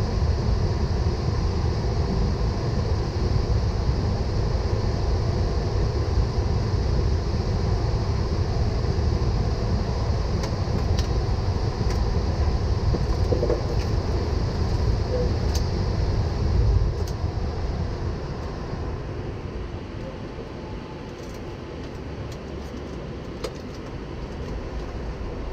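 Steady low rumble and air noise in a Boeing 777 cockpit, easing off and turning quieter about two-thirds of the way through, with a few faint clicks near the end.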